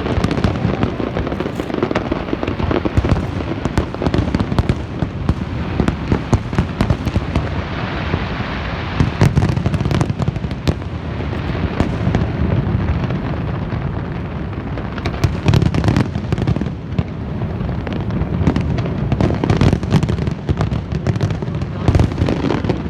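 Fireworks going off in a continuous barrage: many sharp cracks and pops overlap a dense, unbroken low rumble of bursts.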